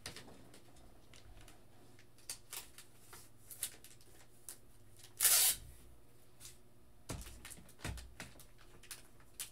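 Trading cards in rigid plastic top loaders and sleeves being handled on a table: scattered light clicks and plastic rustles, with one short, louder rustle about five seconds in and a couple of soft thumps near the end.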